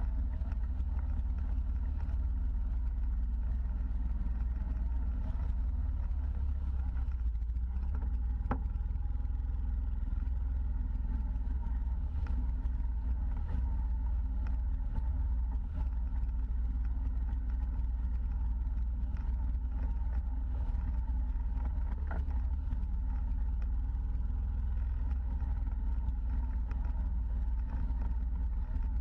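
Side-by-side UTV engine running steadily while driving the trail, a deep even drone with a few faint clicks and rattles scattered through.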